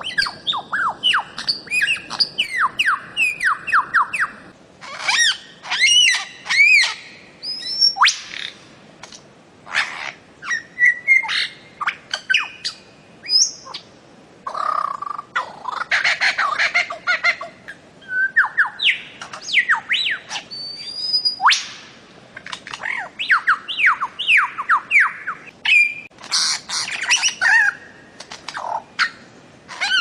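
Birds-of-paradise calling over and over: runs of quick downward-slurred notes mixed with noisier, rasping call bursts.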